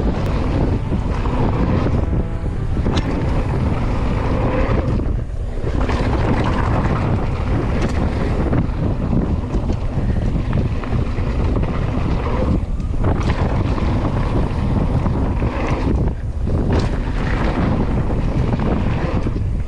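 Wind rushing over the microphone of a camera carried by a mountain biker riding a trail at speed: a loud, steady rush, with a few brief dips.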